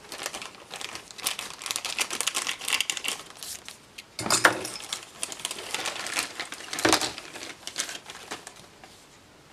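Clear plastic packaging crinkling and rustling as it is cut open with scissors and pulled off a toy dress-form mannequin, with two louder crackles about four and seven seconds in.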